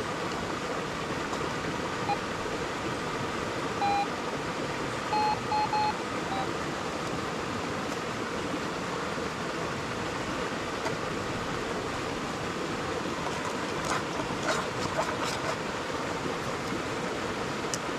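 Steady rush of a small waterfall, with a metal detector giving short target beeps: one about 2 s in, one at 4 s, then three quick beeps, signalling a metal target in the dug soil. A cluster of sharp clicks and knocks follows a few seconds later, past the middle.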